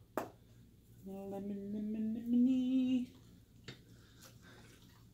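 A man sings a drawn-out, slightly rising "lemony" on one held note. A sharp plastic click comes just before it, from the lemon pepper shaker's flip-top cap being snapped open. A couple of lighter clicks follow it as the shaker is worked over the chicken.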